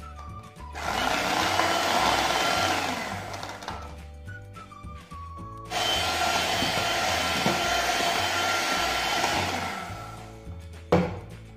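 Electric hand mixer running with its twin beaters in a thick almond cream of butter, sugar, eggs and ground almonds: a steady motor whine in two runs, about three seconds then about five, with a short pause between, stopping near the end.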